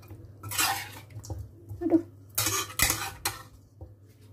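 Cooking utensil scraping and knocking against a wok: a longer scrape near the start, then three quick clatters about two and a half seconds in, as a whole cooked chicken is worked out of the pan to be served.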